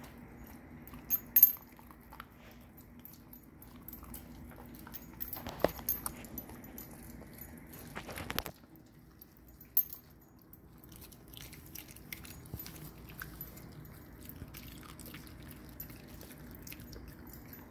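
Long-haired dachshund chewing raw broccoli: scattered crunches and sharp clicks of teeth on the stalk, the loudest a little over a second in, with softer ticks of chewing later. A faint steady low hum lies underneath.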